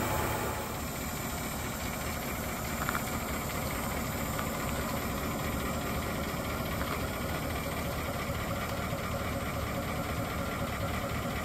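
Caterpillar 3208 V8 diesel in a 1989 Ford C8000 truck idling steadily, running warm after a cold start helped by a water-jacket block heater.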